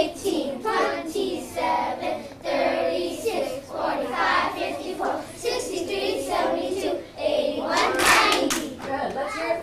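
A class of first-graders singing a times-tables count together in unison, with hand motions and claps. A burst of loud clapping comes about eight seconds in.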